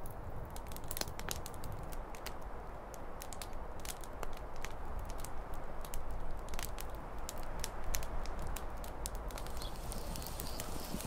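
Small wood campfire of sticks and dry grass crackling, with frequent irregular sharp pops and snaps.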